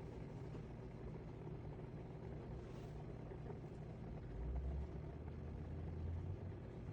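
COMFEE countertop dishwasher running mid-cycle: a steady low hum and rumble, with a deeper drone that swells for a couple of seconds past the middle.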